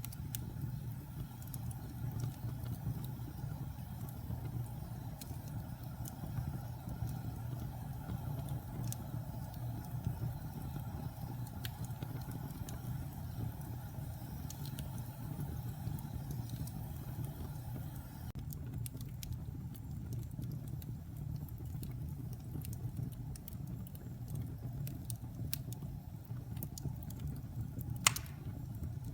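Wood fire burning in a fireplace: a steady low rumble with scattered light crackles and ticks throughout, and one sharper, louder pop near the end.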